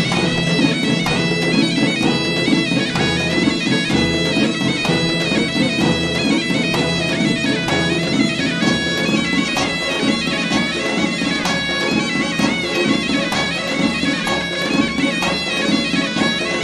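Traditional folk dance music led by a reedy wind instrument playing a sustained, ornamented melody over regular drum beats.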